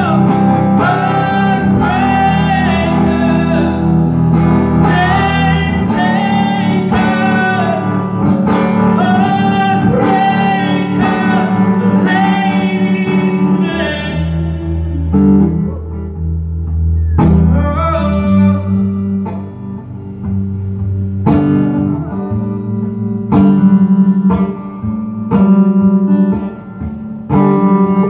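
A male singer sings over a strummed electric guitar in a live solo performance. After about the middle, the voice drops out and the guitar carries on alone with chords.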